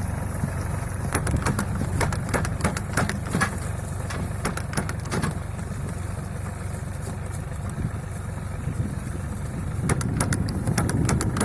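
Tractor engine running steadily while rotary-tilling between strawberry rows, with clusters of sharp clicks and knocks over the engine, a few seconds in and again near the end.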